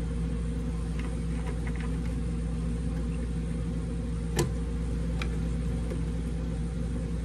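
Steady low machine hum, with a few light plastic clicks as wiring connectors on a vending machine's control board are handled; the sharpest click comes about four seconds in.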